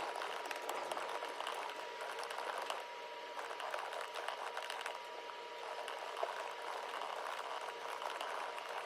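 Rapid typing on a computer keyboard: a dense, uneven patter of key clicks, with a faint steady high tone behind it.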